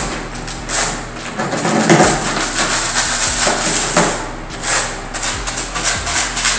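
Small hand trowel scraping and spreading mortar across a concrete floor in repeated, uneven strokes.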